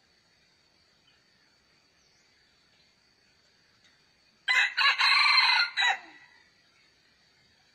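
A rooster crows once, about halfway through: one loud crow of about a second and a half, broken into several parts.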